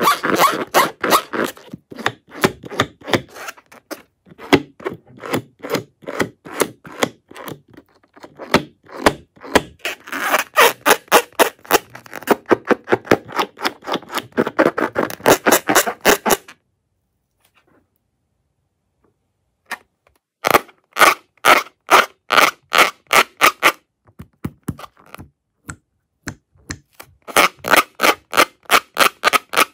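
Fingers squeezing and rubbing a filled latex balloon: fast runs of crackly scraping strokes, about four a second, with a pause of a few seconds about two-thirds through.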